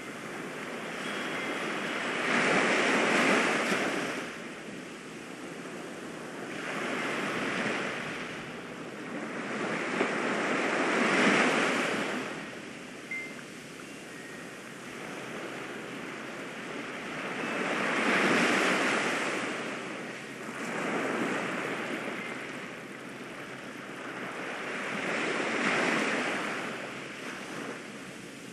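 Ocean waves washing in and receding, the surf swelling and fading six times at irregular intervals of a few seconds.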